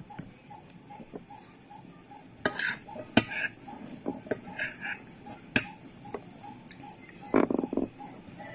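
Spoon clinking and scraping against a plate while eating fried rice, a few sharp clinks the loudest sounds. Under it, a clock ticks steadily, just under three ticks a second.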